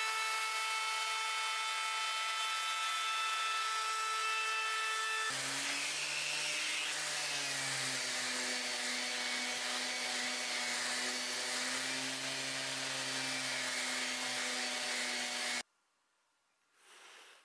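Electric router with a bearing-guided trim bit cutting along the edge of a wooden rocker, a steady high whine. About five seconds in it gives way to a random orbital sander running on the wood with a lower hum, which cuts off suddenly near the end, leaving near silence.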